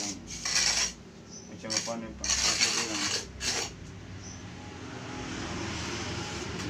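Hand trowel scraping wet cement mortar across a wooden mould frame in about four or five short, gritty strokes over the first few seconds. After that a steady, even rushing noise grows slowly louder.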